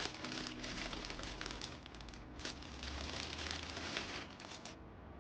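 Fast typing on an Akko 5075B Plus mechanical keyboard: a dense patter of key clacks that pauses briefly about two seconds in and stops shortly before the end.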